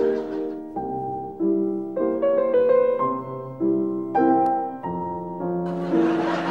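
Instrumental music on a keyboard: a run of sustained chords, each changing after about half a second to a second.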